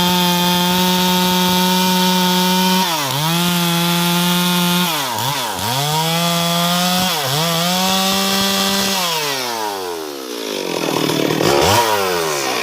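Stihl MS 382 two-stroke chainsaw cutting wood at high revs, its pitch dipping briefly about three times. About nine seconds in the throttle is let off and the revs fall away, with one quick blip of the throttle near the end.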